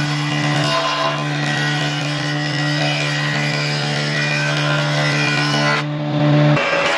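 Woodworking jointer running, its motor giving a steady low hum, while a timber block is fed across the spinning cutter head with a continuous planing noise. The hum cuts off suddenly near the end.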